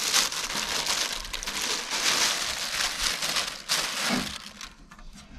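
Crinkling and rustling of packaging being handled, a dense crackly noise that dies down about four seconds in.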